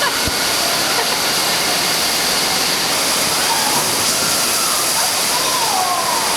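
Loud, steady rush of water in an indoor water park, with faint distant voices in the background.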